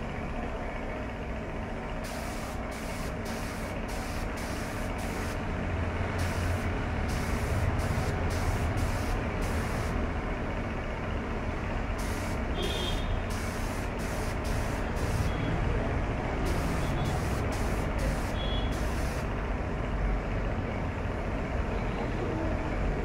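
Gravity-feed spray gun spraying 2K primer in short trigger pulls: quick bursts of compressed-air hiss, about half a dozen at a time in four runs, with pauses between. A steady low rumble sits underneath.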